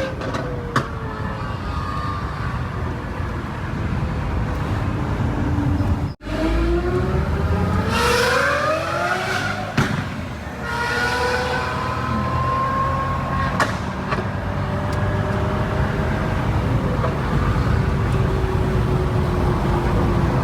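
Lamborghini Aventador SVJ's naturally aspirated V12 running, its pitch rising as the revs climb about seven seconds in, then settling back to a steady note. A few sharp cracks stand out over the engine along the way.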